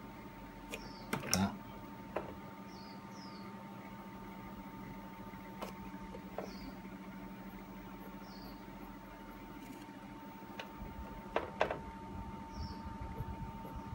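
Light clicks and taps of drawing tools handled on paper and desk, the loudest about a second in and a close pair near the end, over a steady low hum. Faint short high chirps come now and then.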